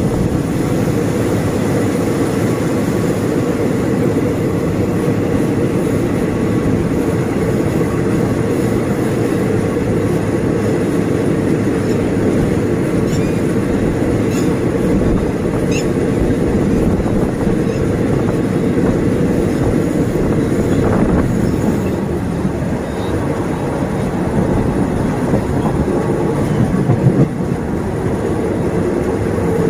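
Passenger train running along the track, heard from an open carriage window: steady, loud running noise of the wheels on the rails.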